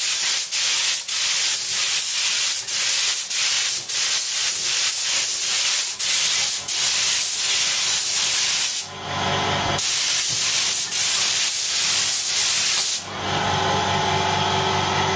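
Loud hiss of a pressurised spray, cut by many brief breaks, with a one-second stop about nine seconds in. Near the end it gives way to a softer hiss under a steady hum.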